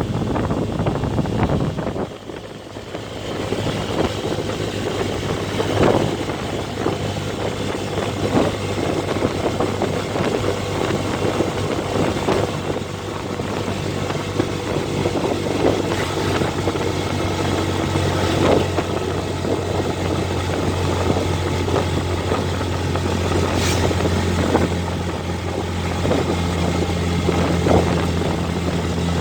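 A motor vehicle's engine running steadily, a constant low hum, with scattered knocks and rattles over it. The sound briefly drops about two seconds in.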